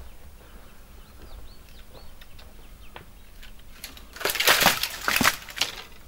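Small birds chirping faintly, then about four seconds in a loud, close rustling and crunching lasting about a second and a half.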